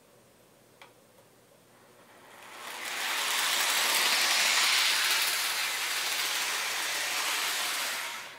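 Lionel Santa Fe RS-3 O-gauge model diesel locomotive running on three-rail track: the whirr and rumble of its motor and wheels on the rails, building as it comes close, loudest as it passes and fading a little before cutting off suddenly. A single short click about a second in.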